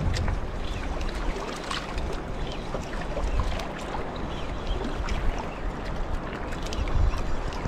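Small boat on open water: wind buffeting the microphone as an irregular low rumble, over water sounds, with many small scattered clicks and knocks.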